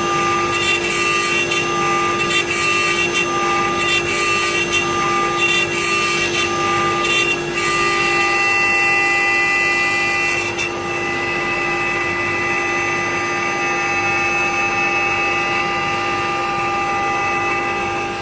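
CNC router spindle running with a steady high whine as the bit cuts, with irregular crackling clicks of cutting through roughly the first ten seconds, then a smoother run.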